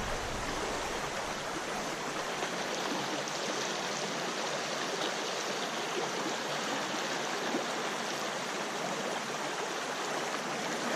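Small stream's water running steadily, an even rushing sound.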